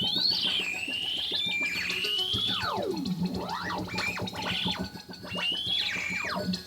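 Hardware synthesizers played as experimental noise: high tones that glide up and down in pitch, with several steep falls and sharp rises, over a steady low tone.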